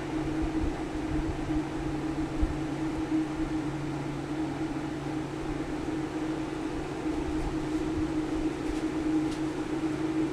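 Steady low machine hum, like a small fan or motor running, holding an even pitch throughout.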